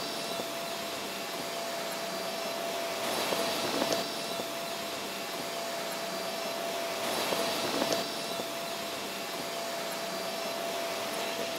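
Steady rushing noise with a faint constant tone, swelling twice in brief whooshes about three to four and seven to eight seconds in, then cutting off suddenly: the sound bed of an animated title sequence.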